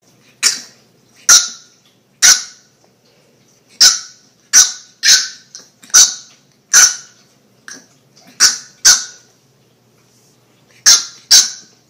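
A French bulldog puppy yapping: about a dozen short, sharp, high-pitched barks in irregular bursts, with a pause of about two seconds near the end before two more.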